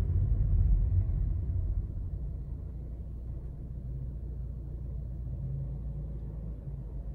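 Low, steady rumble with no other clear sound; it is louder for about the first two seconds, then settles.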